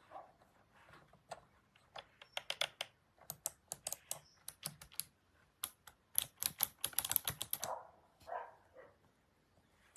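Keys of a Razer Tartarus v2 gaming keypad, with mecha-membrane switches, being pressed in quick, irregular runs of clicks. The runs are busiest about six to seven seconds in.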